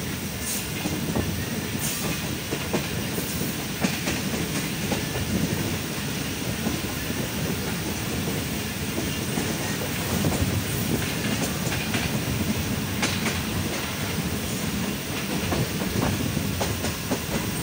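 Passenger train running at speed, heard from beside a coach: a steady rumble of wheels on the track with irregular clicks as the wheels pass over rail joints.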